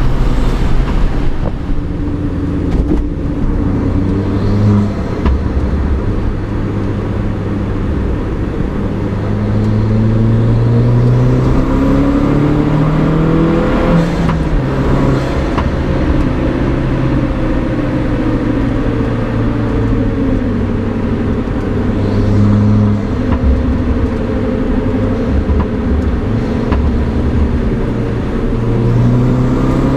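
Mini Cooper R56 JCW's turbocharged 1.6-litre four-cylinder engine pulling under load, breathing through a DOS cold air intake. Revs rise and fall again and again, with one long climb through the middle that drops sharply about halfway through.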